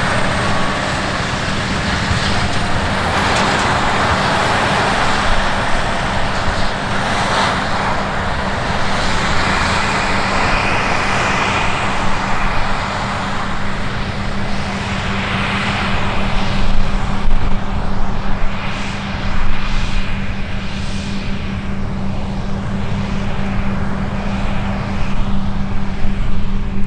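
Heavy diesel farm machinery running under load, with a steady low hum under a broad mechanical rush that grows more uneven, with louder swells, in the second half.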